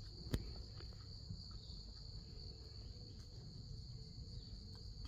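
Faint, steady high-pitched insect chorus from the surrounding woods, a continuous trill with no breaks. A single sharp click sounds about a third of a second in.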